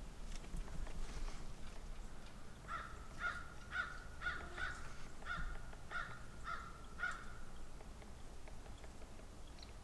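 A bird calling: a series of about nine short calls on one even pitch, roughly two a second, beginning about three seconds in and stopping about seven seconds in.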